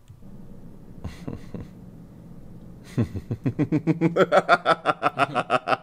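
A man laughing hard in a quick run of voiced "ha-ha" pulses, about five a second, starting about three seconds in and carrying on to the end. Before that there is only quiet room tone.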